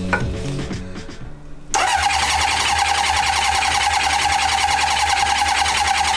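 Honda CB750's electric starter cranking the inline-four engine over without it firing, for a compression test on cylinder three. It starts about two seconds in and runs steadily with a starter-motor whine and a fast, even chugging rhythm.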